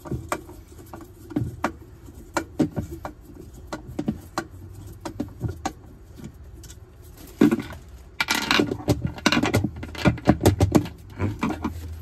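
Small clicks, taps and scrapes of a screwdriver and hand working the centre screw of a top-loading washing machine's plastic pulsator, with a busier spell of rattling and knocking about eight to eleven seconds in.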